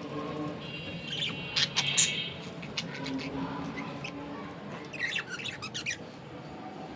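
Breeding budgerigars chattering and chirping. A warbling chatter comes about a second in, then sharp high squawks just after, and a quick run of chirps about five seconds in.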